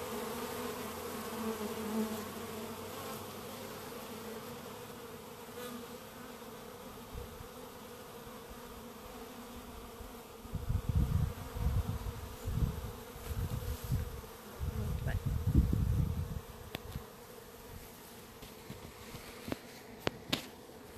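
Honeybees buzzing steadily at a hive entrance, many of them fanning with their abdomens raised; the hum fades after the first few seconds. In the middle come several bursts of low rumble.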